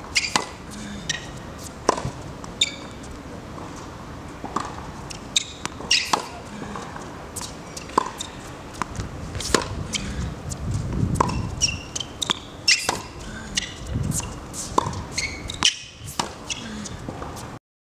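Tennis rally on a hard court: sharp pops of racket strings striking the ball and the ball bouncing, coming irregularly about every second or two. The sound cuts off suddenly near the end.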